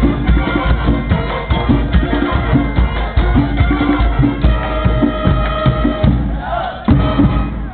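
Marching band playing: dense, driving drums and percussion with a few long held notes about halfway through.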